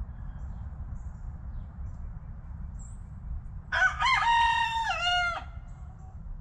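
A rooster crowing once, about four seconds in: a single pitched call of under two seconds that rises, holds and then drops at the end. Underneath is a steady low background rumble.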